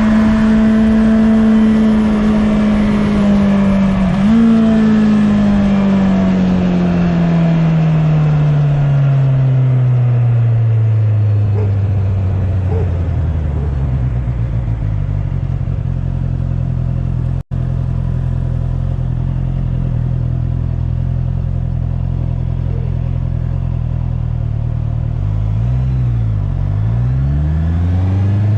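2019 Honda CB650R's inline-four engine heard from on board while riding. It holds steady revs with a brief blip about four seconds in, then the revs fall slowly as the bike rolls off, hold lower, and dip and climb again near the end.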